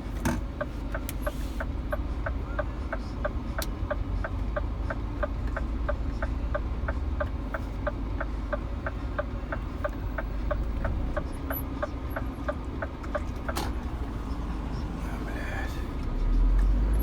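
A truck's turn-signal relay clicking evenly, about three clicks a second, while the right indicator is on for a right turn, then stopping about 13 seconds in. Under it is the steady low rumble of the truck's engine, heard inside the cab.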